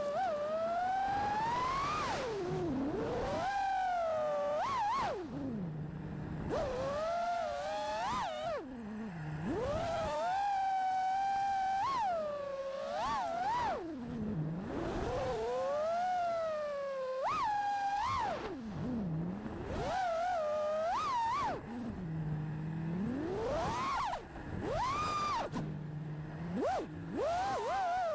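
FPV freestyle quadcopter's brushless motors (iFlight Xing2 2306 1750kv) spinning three-blade props, whining up and down in pitch with the throttle. Every few seconds the pitch drops to a low hum as the throttle is cut, then climbs sharply back to a high whine on each punch.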